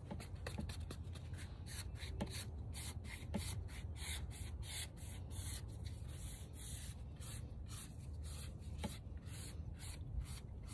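Paintbrush scratching across the rough surface of a concrete statue in quick, repeated strokes, several a second. The brush is nearly dry, working a thin white contrast coat onto the raised detail.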